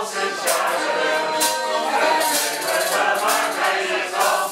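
Piano accordion playing a tune, with a group of voices singing along and light sharp strokes about once a second.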